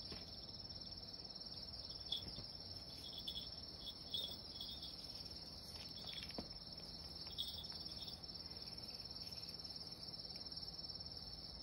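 Insects trilling in a steady, high, continuous chorus, with a few faint soft ticks scattered through it.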